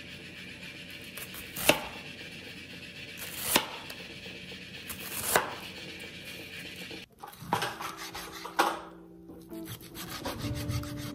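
Chef's knife slicing down through a halved onion onto a plastic cutting board: three crisp cuts about two seconds apart. After a break about seven seconds in come a couple of softer knife strokes through raw beef on the board.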